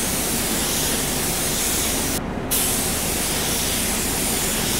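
3M Performance compressed-air paint spray gun hissing steadily as it lays blue base coat on a metal spray-out card. The hiss breaks off briefly a little over two seconds in, then starts again.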